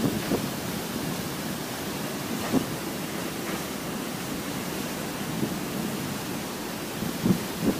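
Steady rushing of a tall waterfall plunging into its pool, heard close to the falls in the spray.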